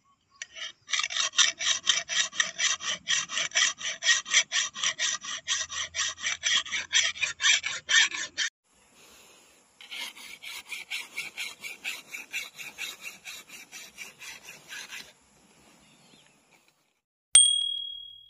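A round chainsaw file rasping across the edge of a steel brush-cutter blade in quick, even strokes, about five a second. There are two runs of filing with a pause between, and the second run is quieter. Near the end a single bright chime rings out and fades.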